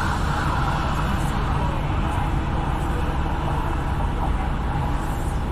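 Steady road noise of a car driving in traffic: a constant low engine and tyre rumble under an even hiss.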